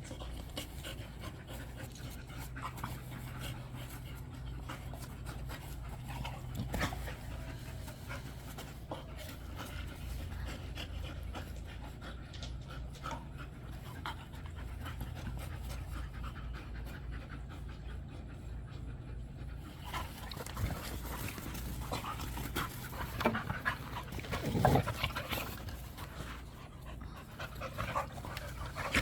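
Dog panting steadily, with louder, irregular dog sounds coming in during the last third.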